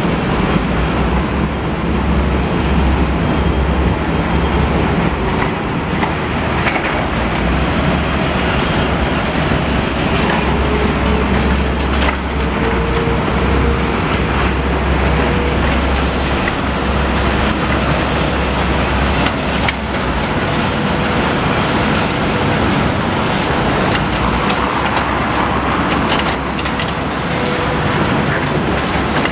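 Steady running noise of a moving vehicle heard from on board: a continuous low rumble under broad road or track noise, with a faint whine that rises slowly around the middle.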